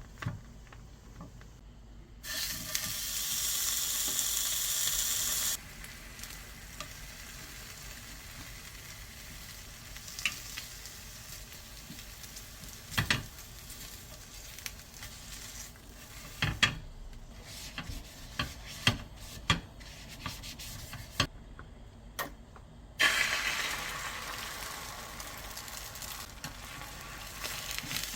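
Food sizzling in a frying pan, loudly for a few seconds and then cut off sharply, with scattered clinks and knocks of a cooking utensil against the pan, and a second sizzle starting suddenly near the end and slowly dying down.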